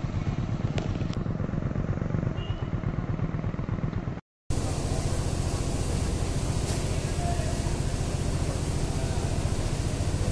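An engine running steadily, a low rumble with fast, even pulsing, broken by a brief dropout just over four seconds in.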